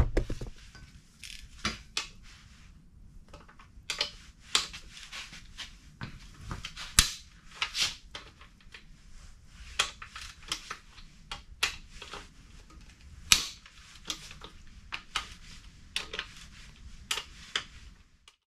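Irregular sharp metallic clicks and knocks from hand tools working the main bolts on an aluminium BMW N55 engine block, as the bolts are loosened for bedplate removal.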